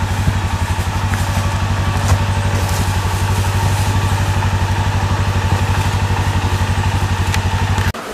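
ATV engine idling steadily with an even low throb. It cuts off abruptly near the end.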